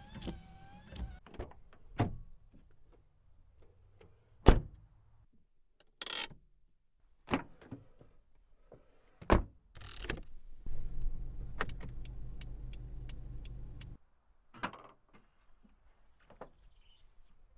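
A 2015 Honda Civic's power window motor whines to a stop, followed by a run of separate clicks, latch clacks and thuds from the car's doors and controls, the loudest a sharp thud about four and a half seconds in. A low hum runs for about three seconds in the middle.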